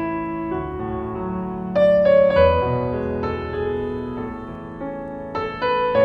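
Background piano music: slow, sustained chords, with new notes struck about every second.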